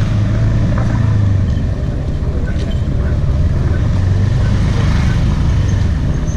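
Motorbike engine running steadily at low speed, heard from the bike itself, over low rumbling road and wind noise. The engine hum eases off about two seconds in and picks up again later.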